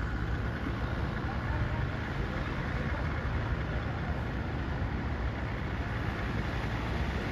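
Tractor engine running steadily with a low rumble, as it pushes a fishing boat down the beach.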